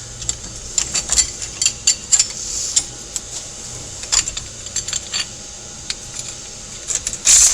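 Light metallic clinks and taps of steel transmission parts and hand tools being handled, with a louder short burst near the end.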